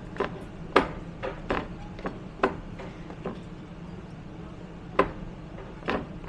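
Footsteps of passengers boarding a train, shoes knocking on the metal-edged entry step and the carriage floor in an irregular run of sharp steps, with a steady low hum underneath.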